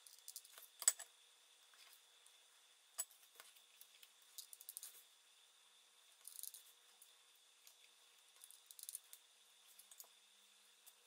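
Quiet handling of small paper cut-outs: scattered light clicks, taps and brief rustles as painted paper circles are picked up, set down and pressed in place, the sharpest tap about a second in. A faint steady high-pitched tone sits underneath.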